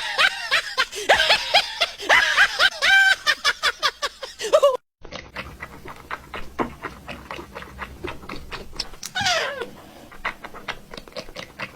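Cat meowing over and over in short rising-and-falling calls. After a sudden cut about five seconds in come a run of light taps and clicks and one long falling meow near the end.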